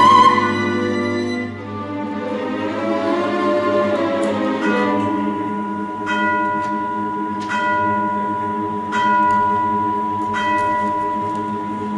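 Opera orchestra holding soft sustained notes with a steady high tone on top. From about halfway, a bell strikes at an even pace, about once every second and a half.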